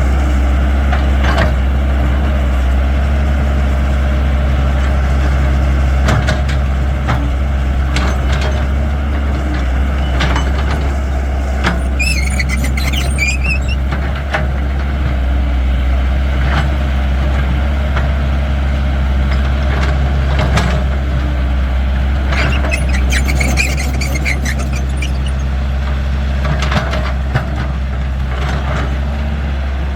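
Caterpillar 312 hydraulic excavator's diesel engine running steadily under digging load, with scattered knocks and clanks. A wavering high squeal comes twice, about twelve and twenty-three seconds in.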